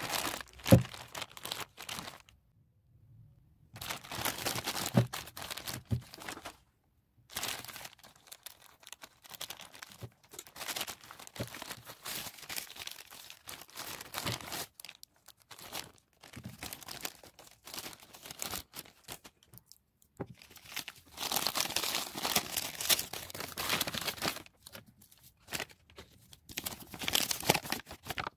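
Plastic courier packaging crinkling and tearing as it is handled and pulled open by hand, in irregular bursts broken by short silent gaps.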